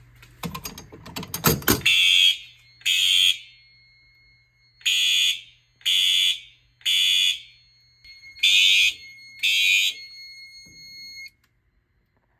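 FCI HE-8F-STW horn strobes sounding: seven harsh, loud half-second horn blasts about a second apart, grouped with longer pauses between as in a temporal fire-alarm evacuation pattern. They are preceded by a rattle of clicks, and a steady high tone sounds under the blasts until everything cuts off about eleven seconds in.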